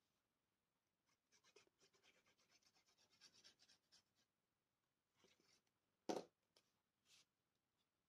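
Faint, quick scratching as the nozzle of a liquid-glue tube is drawn across a strip of paper. Near the end there is a soft paper rustle, a single knock about six seconds in, and another short rustle as the glued strip is laid down and pressed.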